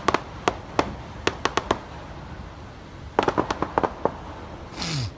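Distant aerial fireworks popping and crackling in quick clusters of sharp reports, with a short rushing noise near the end.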